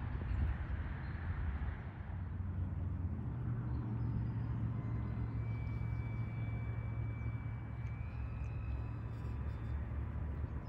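Steady low engine hum with a constant low tone, after some wind rumble on the microphone in the first couple of seconds.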